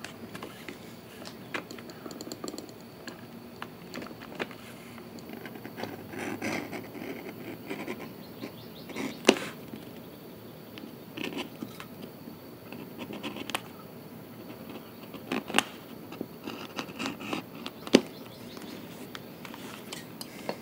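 Hand leatherworking on a thick holster edge: an edge tool scraping along the leather, with handling noise and scattered clicks. Three sharp knocks stand out, about nine, fifteen and eighteen seconds in, as tools are set down on the workbench.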